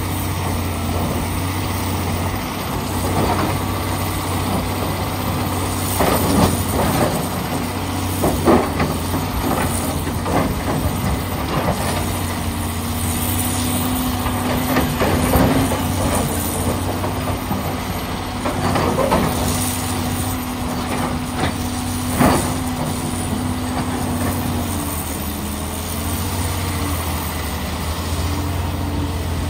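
Komatsu PC450LC hydraulic excavator's diesel engine running steadily as its bucket digs into broken quarry rock, with repeated sharp knocks and clanks of stone against the steel bucket. A steady higher hum joins from about twelve to twenty-five seconds in.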